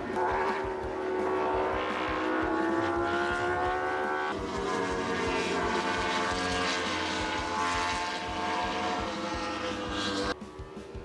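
Racing motorcycle engines accelerating, their pitch rising for about four seconds, dropping at a gear change, then climbing again before the sound cuts off abruptly near the end.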